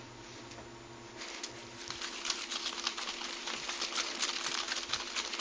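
Paper raffle slips being shaken in a container: a fast, continuous rustling rattle that starts about a second in and grows louder.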